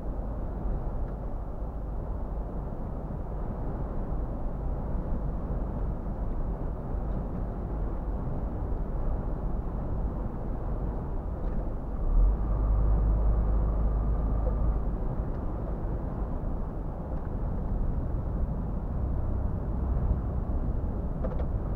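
Steady engine and road rumble heard inside the cab of a Scania R450 truck on the move, its 13-litre straight-six under way. Just past the middle the low rumble grows louder for about three seconds.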